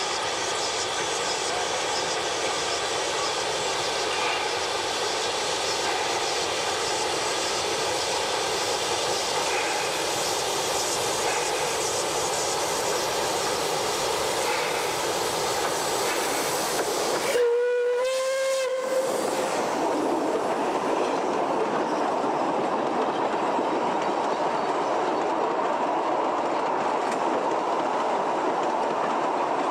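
Narrow-gauge steam locomotive running with a steady hiss of steam and wheel noise, giving one short blast on its steam whistle a little past halfway. Its carriages then roll past close by with a steady rumble of wheels on rail.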